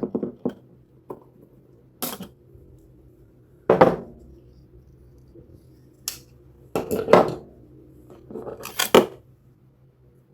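A series of sharp snips and clicks, about six spread over several seconds, some coming in quick pairs: cutters snipping through plastic zip ties on the packaging.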